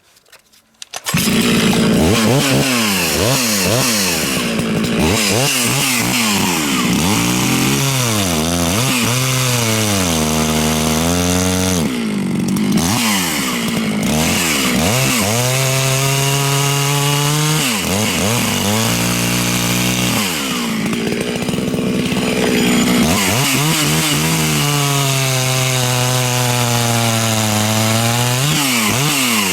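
Two-stroke race chainsaw running hard through a log, likely the saw fitted with a 10-tooth drive sprocket. It comes in at full revs about a second in. Its pitch drops several times as the chain bogs down under load in the cut, then climbs back up as the load comes off.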